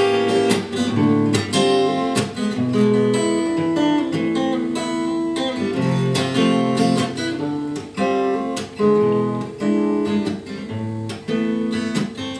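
Acoustic guitar playing an instrumental passage of strummed and picked chords, without singing.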